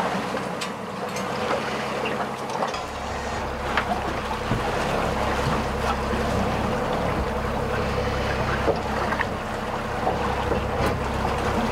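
Steady drone of a diesel trawler underway, with water and wind noise and a few short sharp knocks. A deeper low rumble joins about three seconds in and holds steady.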